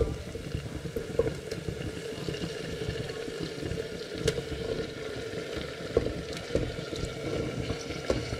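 Yogurt-marinated chicken sizzling and bubbling steadily in hot ghee with caramelized onions in a pressure cooker, with a few sharp knocks of a utensil against the pot.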